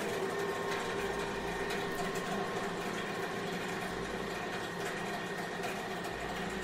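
A small machine running steadily, a constant hum with a few held tones above it.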